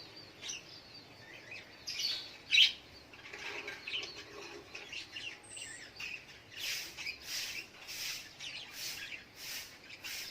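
Sogok ontong (little spiderhunter) calling with high, sharp chirps. Scattered at first, with one loud chirp about two and a half seconds in, then a steady run of repeated chirps, nearly two a second, through the second half.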